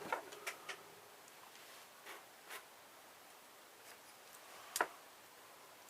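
Faint, scattered clicks and light scraping of small metal and plastic parts of an electrical switch being handled and pried apart, with one sharper click about five seconds in.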